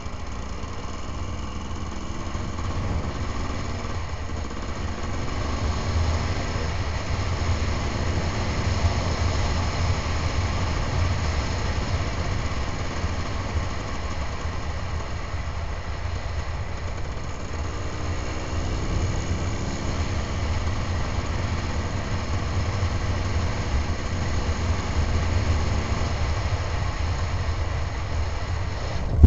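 Enduro motorcycle engine running at moderate revs while the bike rides along, with wind rush over the microphone; the engine pitch climbs gently twice as the bike picks up speed. A brief click right at the end.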